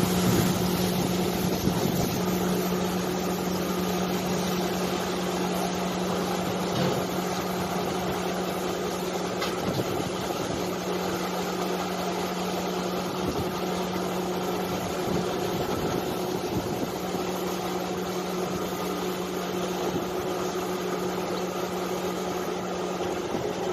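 An engine running steadily with a constant low hum, under the hiss of a pressure hose spraying disinfectant.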